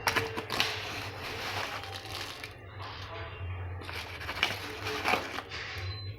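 Desi khand (coarse unrefined sugar) being tipped and stirred into milk vermicelli in a kadhai: grainy rustling and scraping with a few light clicks of a utensil against the pan.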